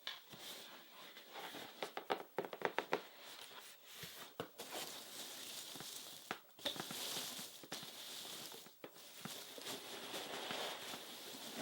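Close-miked ASMR trigger sounds: a run of quick, light taps and scratches, then a steady soft rustling or brushing.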